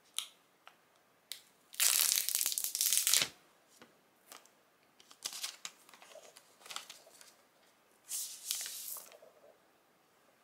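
Clear plastic shrink-wrap being torn off a new iPhone 12 box by its pull tab. A long loud rip comes about two seconds in, followed by shorter tearing and crinkling sounds as the wrap comes away.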